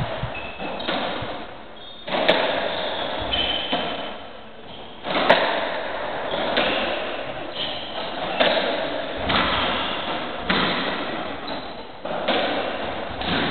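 UK racketball rally in a squash court: the hollow rubber ball is struck by the rackets and smacks off the walls about once every second or so, each hit echoing around the court.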